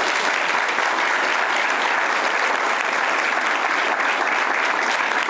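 Audience applause: many people clapping steadily, dense and even, without pause.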